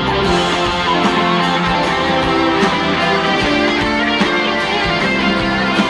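Live band playing an instrumental break in a pop song, guitar to the fore over a steady beat.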